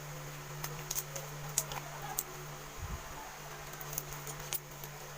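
Freshly made slime being handled and squished, giving a few scattered sharp, sticky clicks and pops over a steady low hum.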